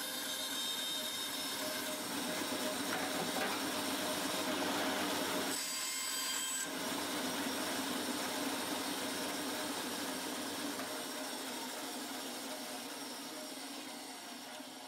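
A woodworking power tool running steadily as it works wood, with a brief dip about six seconds in, and the level falling off toward the end.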